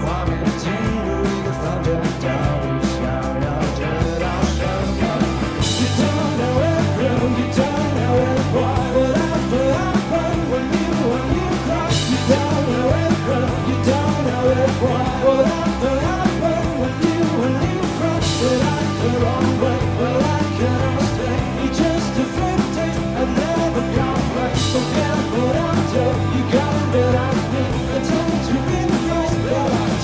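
A rock band playing live: a male lead vocal over electric guitar, bass guitar and a drum kit. A cymbal crash lands roughly every six seconds.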